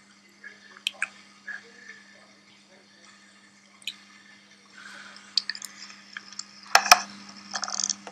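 Soft clicks of fingertips tapping smartphone touchscreens, then rustling handling noise with a couple of louder knocks as the camera is picked up and moved, over a steady low hum.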